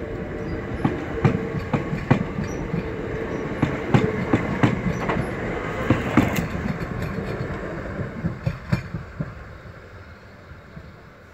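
Electric multiple-unit passenger train running past, its wheels clicking over the rail joints in a steady clickety-clack over a low hum. The clicks stop about nine seconds in and the sound fades away as the train pulls off.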